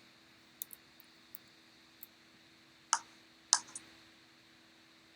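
Clicking at a computer: a few faint mouse and key clicks in the first two seconds, then three louder clicks about three to four seconds in, over a faint steady hum.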